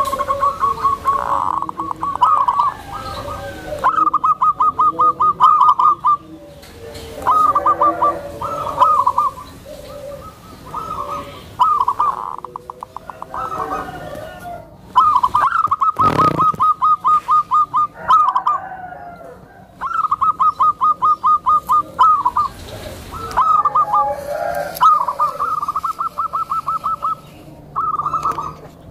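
Zebra dove (perkutut) singing: repeated phrases, each a quick string of soft staccato coos, with short pauses between phrases. It is a tame bird's gentle song, of the kind used to call in other zebra doves.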